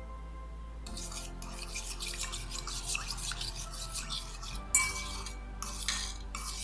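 Spoon stirring and scraping quickly around a small bowl, mixing baking soda with lemon juice and a little water, with one sharper clink of the spoon against the bowl about two-thirds through. Soft background music plays underneath.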